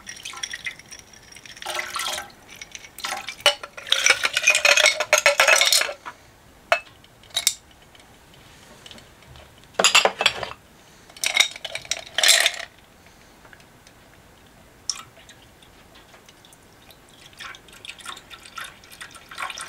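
Liquid splashing and pouring as a glass dish of small plastic parts is lifted out of an ultrasonic cleaner's tank of detergent and drained back into it, with clinks of glass and parts. The sound comes in separate bursts, the longest a couple of seconds about four seconds in, then shorter ones around ten to twelve seconds.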